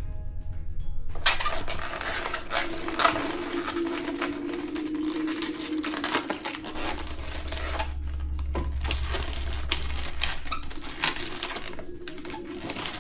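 Latex modelling balloons rubbing and squeaking while being twisted, with dense scratchy friction and short squeaks starting about a second in and stopping near the end, over background music.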